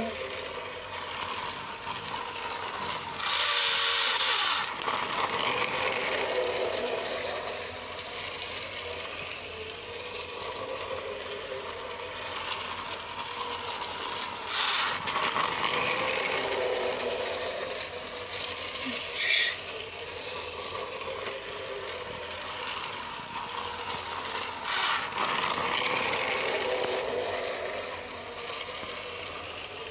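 Small geared electric motor of a battery-powered toy train whirring steadily as it circles a plastic track. The sound grows louder each time the train passes close, about every ten seconds.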